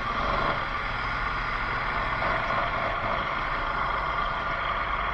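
ATV engine running steadily under way, with a low rumble and an even noise of riding.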